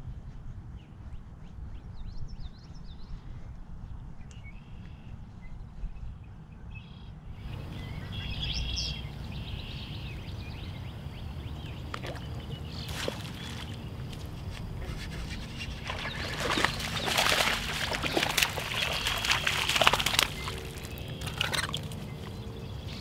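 Birds chirping over a steady low rumble. In the second half, sharp water splashes and then a louder stretch of splashing as a largemouth bass is hooked on a topwater frog and dragged through the lily pads.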